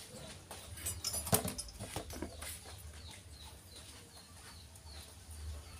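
A few sharp clicks and rustles from hands working the branches and leaves of a small potted bonsai, then a bird chirping rapidly and repeatedly in the background.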